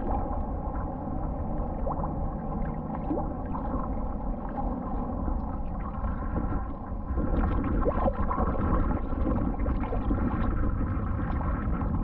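Shallow seawater sloshing and gurgling around a camera held at the water's surface, heard as a muffled low rumble while someone wades and digs. It gets a little louder about seven seconds in.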